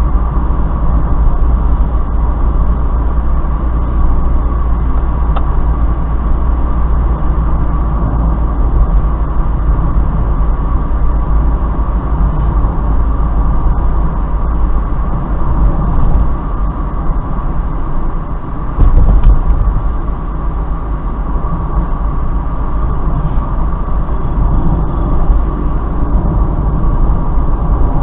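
Mazda Roadster (MX-5) driving at about 50 km/h, its engine and road noise heard from inside the cabin through a dashcam: a steady low rumble. Near two-thirds of the way through it dips briefly, then comes back with a louder bump.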